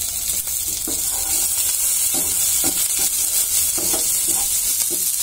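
Sliced onions and green chillies sizzling steadily in hot oil in a non-stick frying pan, stirred with a few short scrapes along the way.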